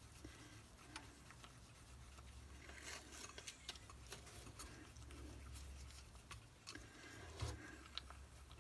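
Faint, scattered clicks and soft scrapes of a wooden popsicle stick stirring a thick paste of baby powder and hand lotion in a clear bowl, over a low steady hum.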